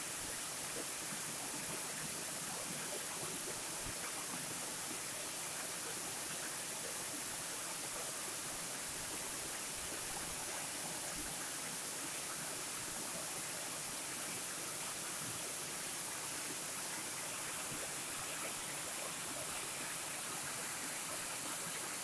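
Waterfall spilling off a rock ledge and cascading down layered rock into a rocky creek: a steady rushing of water with a constant high hiss.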